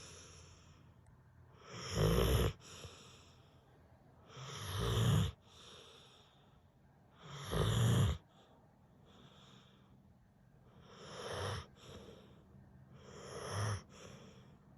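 Slow, regular snoring of someone in deep sleep: five snores about every two and a half to three seconds, each swelling up and then stopping sharply, with quieter breathing between. The last two snores are softer.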